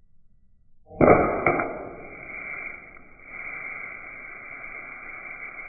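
A BB gun shot and its hit on the target: a sharp crack about a second in, a second strike half a second later, then a muffled hiss that slowly fades.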